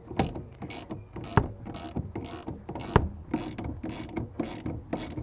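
Ratchet spanner on the rear strut's top-mount nut, clicking back and forth in repeated strokes, about three a second. The nut is coming undone rather than spinning with the shaft.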